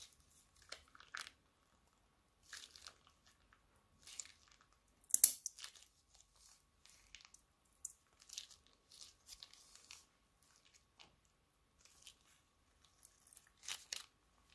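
Clear plastic piping bag crinkling and crackling as a hand squeezes glittery clear slime out of it, in short scattered crackles, the loudest about five seconds in.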